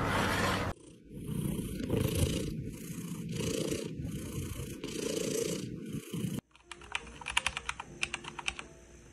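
A cat purring close up, a low rumble that swells and eases with each breath. About six and a half seconds in it gives way to a quick run of clicks from a computer keyboard being typed on.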